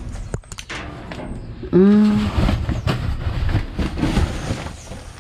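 Cardboard boxes and plastic trash bags rustling and scraping as they are pulled around inside a metal dumpster, with a few sharp clicks about half a second in. About two seconds in comes the loudest sound, a short wordless vocal sound from the man, held for under half a second.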